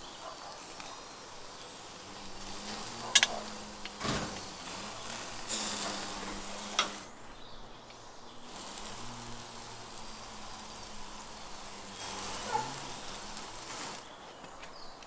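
Skewered ostrich meat sizzling over hot charcoal, with a few sharp metallic clicks as the skewers are handled and turned.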